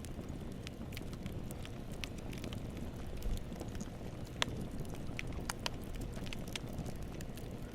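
Wood fire burning, a steady low rumble of flames with scattered sharp crackles and pops of wood, a few louder pops in the middle.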